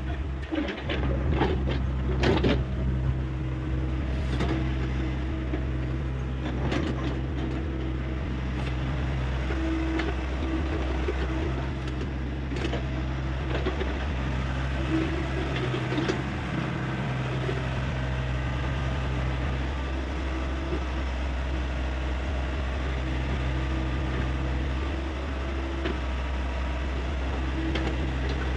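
Hyundai 85A excavator's diesel engine running steadily, with a cluster of sharp knocks in the first few seconds and a few single knocks later.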